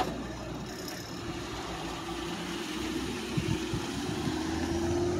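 Police SUV's engine running as it pulls away slowly, its engine note rising steadily, with a short knock right at the start.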